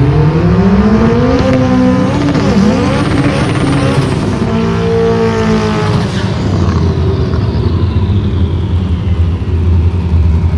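Drag race car engines, of cars that run eight-second passes, with a loud low rumble throughout. The engine pitch climbs as they rev near the start and again about two seconds in, and one engine note rises then falls about four to six seconds in.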